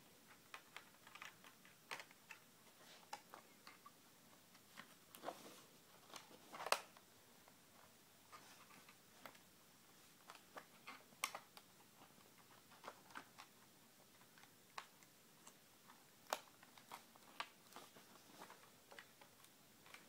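Faint, scattered small clicks and taps of hands fitting a DDR3L laptop RAM module into its slot and handling the plastic laptop case, with one louder click about seven seconds in.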